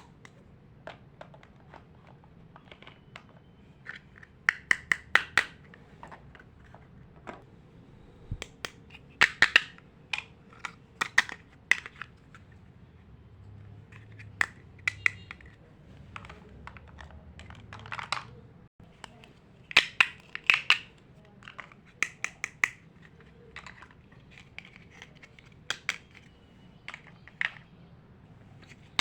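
Small plastic toy pieces clicking and tapping as they are handled and fitted together, in quick clusters of sharp clicks with short pauses between.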